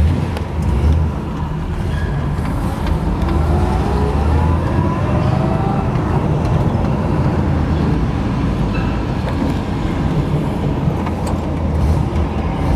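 1965 Pontiac GTO's 389 V8 running as the car drives, heard from inside the cabin with the windows down. The engine note rises a few seconds in as the car picks up speed.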